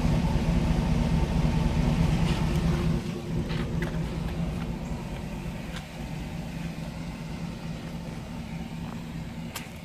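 Steady mechanical hum from the Hummer H2 as its rear air suspension inflates and raises the truck, fainter from about three seconds in, with a few light clicks.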